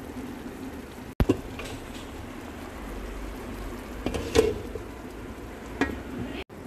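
A few sharp clinks and knocks, like a utensil against a steel cooking pot, over a steady low hum. The sound drops out abruptly twice.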